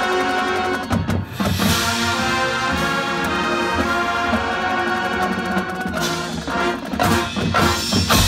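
Marching band playing full out: the brass holding sustained chords over drums and front-ensemble percussion, then a string of loud accented ensemble hits from about six seconds in as the show closes.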